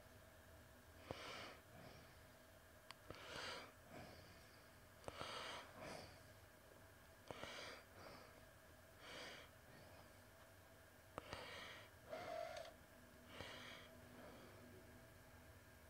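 Quiet breathing of a person, a soft breath roughly every two seconds, some with a faint click just before, over a faint steady hum.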